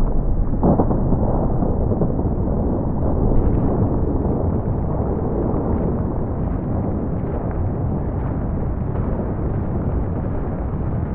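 Deep, muffled rumble of the 116-metre AFE Tower collapsing after its explosive implosion, with a few sharp cracks from breaking and falling debris.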